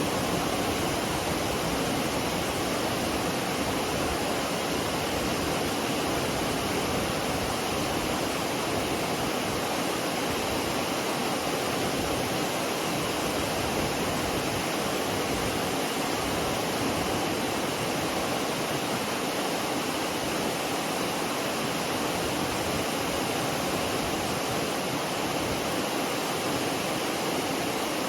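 Steady rushing of a waterfall on the McCloud River, a constant wash of falling water without a break.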